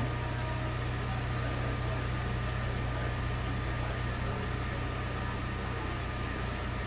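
Room tone: a steady low hum that does not change.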